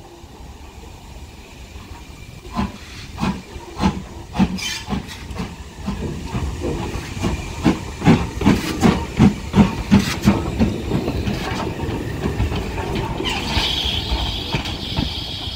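BR Standard Class 4MT 2-6-4 tank steam locomotive passing slowly at close range: a regular run of knocks from its wheels and motion that grows louder and quicker as it goes by, over a low rumble. Steam starts hissing steadily near the end.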